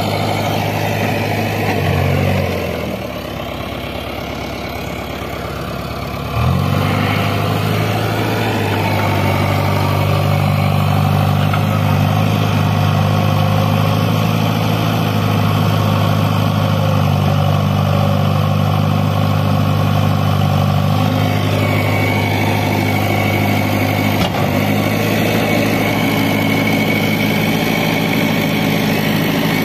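Heavy diesel engine running. About two and a half seconds in it drops to a quieter, lower note, then about six seconds in it picks up suddenly and runs steady and louder.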